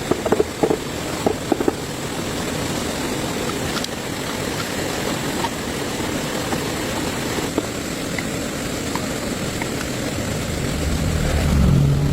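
Tractor engine running steadily, with a few sharp metallic clinks in the first two seconds; near the end the engine gets louder and its note rises.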